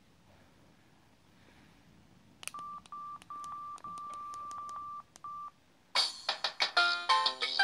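Samsung SGH-E720 mobile phone keypad: a quick run of key clicks, each with a steady single-pitch beep, some short and one held for about a second. About six seconds in, a polyphonic ringtone starts: a bright melody of quick notes.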